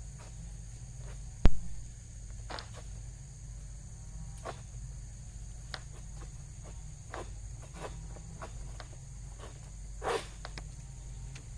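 Steady high-pitched insect drone, with scattered short clicks and rustles and one sharp click about a second and a half in.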